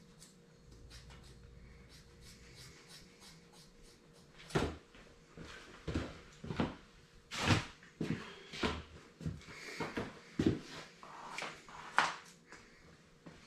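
Irregular knocks and clicks of objects being handled and set down, starting about four seconds in, with only faint ticking before that.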